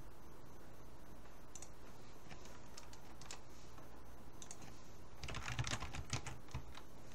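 Keystrokes on a computer keyboard: a few scattered taps, then a quick run of typing about five seconds in, over a steady low hum.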